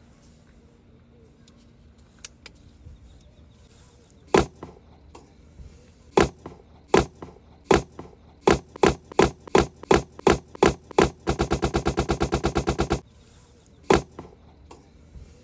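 A series of sharp knocks: a few spaced apart, then coming faster and faster into a rapid even run for a second or two, then one last knock.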